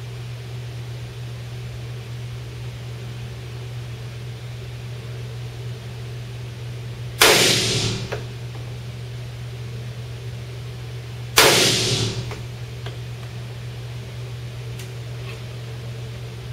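Two .45 ACP shots from a Norinco 1911 Commander pistol, about four seconds apart, each ringing briefly in the small indoor range, over the steady hum of a fan. A few light clicks follow near the end.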